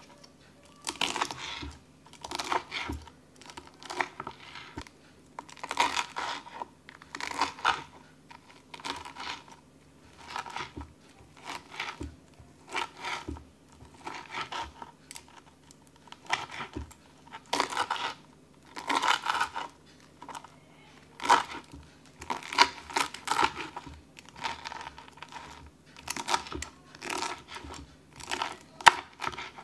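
Kitchen knife slicing through the crispy panko crust of oven-baked chicken katsu on a plastic cutting board, a crackling crunch with each cut, roughly one every second or so.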